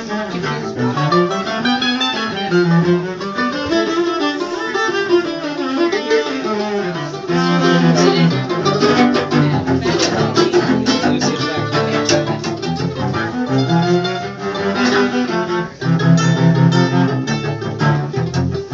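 Cello instrumental passage: a winding, quick-moving melody in the low and middle range, no singing.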